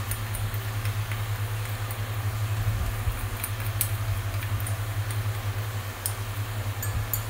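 A steady low hum with a few faint, light clicks as a small spatula scrapes and taps colouring from a small cup into a glass beaker.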